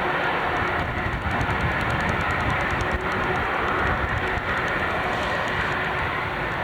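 Steady jet engine noise from an airliner, with a faint steady whine, over gusty wind buffeting the microphone.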